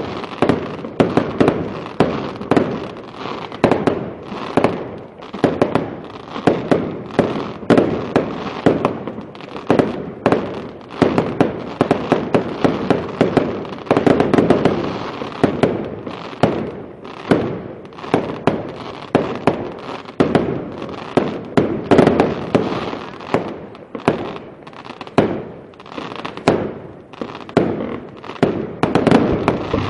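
Aerial firework shells bursting in a rapid, continuous barrage of sharp bangs, several a second.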